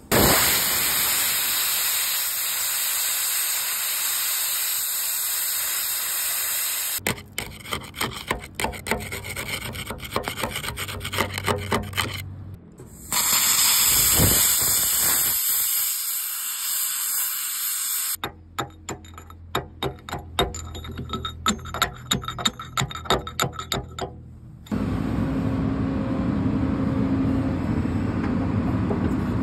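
Oxy-fuel cutting torch hissing as it cuts away a broken excavator bucket tooth, in two spells. Between them come spells of quick, irregular metal knocks as the tooth is worked off and on. A steady low hum takes over near the end.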